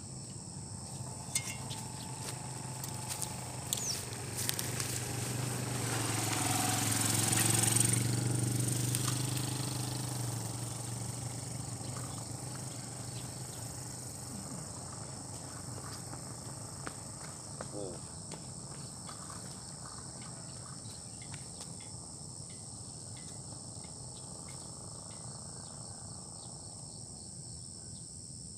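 Steady high-pitched chorus of insects, crickets among them, with a louder rushing swell and low hum that builds, peaks about eight seconds in and fades away, and a few light clicks scattered through.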